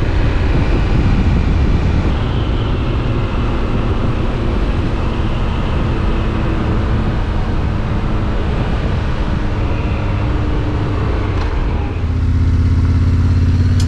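Yamaha Ténéré 700's parallel-twin engine with an Akrapovic exhaust running while riding, mixed with heavy wind rush on the microphone. About twelve seconds in the wind noise drops away and a steady low engine hum comes through.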